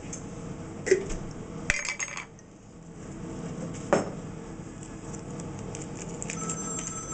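A few sharp clinks and knocks of kitchen items being handled: one about a second in, a quick cluster just before two seconds, and another at about four seconds, over a steady low background hum.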